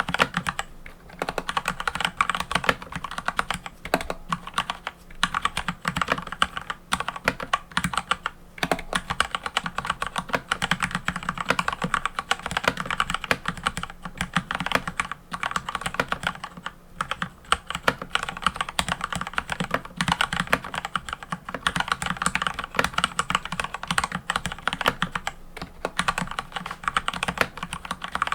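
Continuous fast typing on a mechanical keyboard: a dense run of key clacks with only brief pauses.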